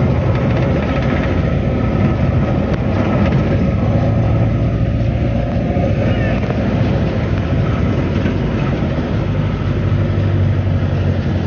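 A motor vehicle running steadily, with engine and road noise.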